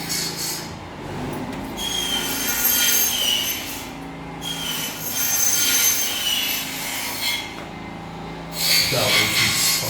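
A harsh scraping rub with a high squeal, in two long passes of about two seconds each.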